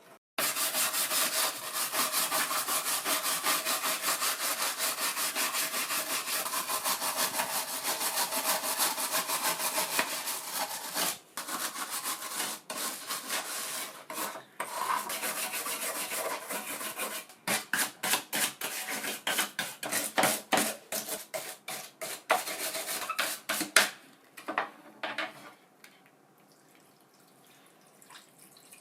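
Rapid back-and-forth abrasive rubbing on a part of an old cordless drill, several strokes a second. It breaks off briefly a few times, slows to separate strokes in the second half and stops about 24 seconds in.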